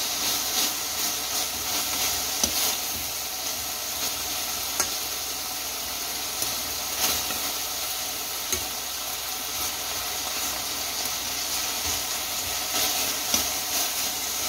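Cubes of beef and vegetables sizzling in a hot stainless steel frying pan, stirred with metal tongs that click against the pan now and then.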